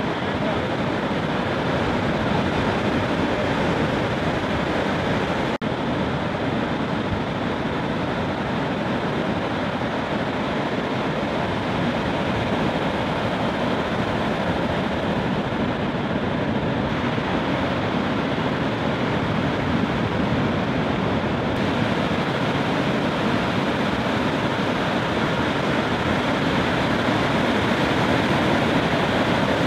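Steady rush of breaking ocean surf, an even wash of noise without distinct single crashes, briefly dipping about five and a half seconds in.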